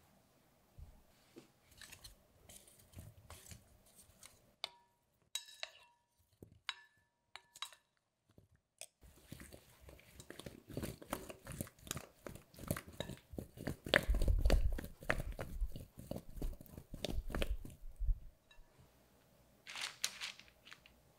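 Boiled potato halves tossed and shaken hard in a glass mixing bowl, knocking and rattling against each other and the glass, loudest about two-thirds of the way in, then stopping. A few light taps first, and near the end soft taps as potatoes are set down on parchment with a wooden spoon.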